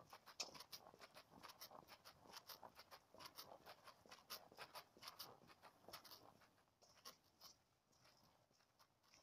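Faint handling noise from a phone carried on the body while walking: irregular clicks, scuffs and rustles, several a second.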